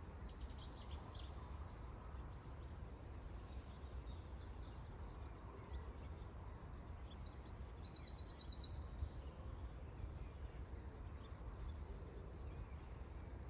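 Steady low rumble of wind on the microphone by a lake, with faint bird chirps and a short rapid trill about eight seconds in.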